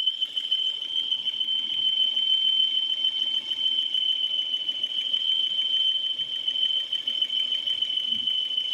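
Peugeot 408 engine running with a steady, high-pitched whine that sounds like a worn pulley bearing but comes from the breather valve in the valve cover.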